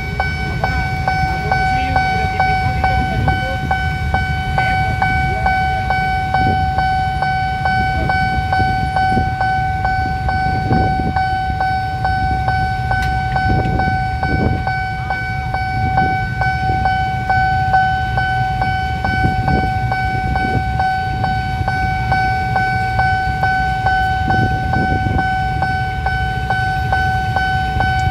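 Railway level-crossing warning alarm sounding from the crossing post's loudspeaker, one steady high tone held without a break, over the low rumble of idling motorbikes and traffic waiting at the closed crossing. The alarm means a train is due.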